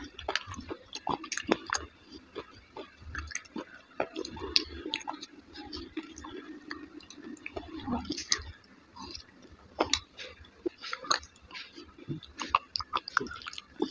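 Wet chewing of soft, yogurt-soaked dahi vada, with moist mouth and lip smacks and many sharp little clicks.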